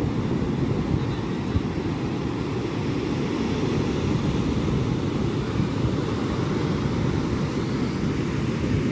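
Sea surf breaking on a beach: a steady, low, continuous roar of waves.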